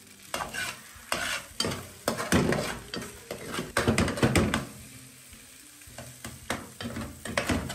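A metal slotted spoon stirs and scrapes scrambled eggs around a frying pan, making irregular clicks and scrapes against the pan while the eggs sizzle. The scraping eases off for about a second around five seconds in, then resumes.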